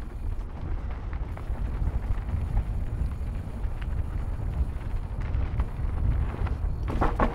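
Mountain bike rolling fast downhill on dirt singletrack, with a steady low rumble of wind on the microphone and tyres on the trail, and small rattles and clicks from the bike. Near the end, a brief burst of louder rattling as the bike crosses rough ground.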